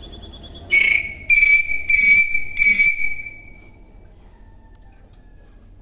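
Common hill myna giving four loud whistled notes on one steady pitch, starting about a second in, in quick succession, the last one trailing off.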